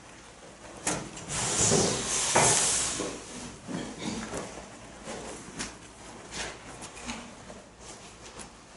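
A group of people sitting down on folding chairs and handling music folders: a loud rustling and clattering about a second or two in, then scattered small clicks, knocks and creaks of chairs and folders.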